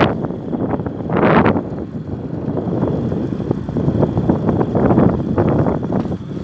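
Wind buffeting the microphone of a camera carried on a moving bicycle, with a low rumble underneath; the noise swells and fades in uneven gusts, the strongest about a second in.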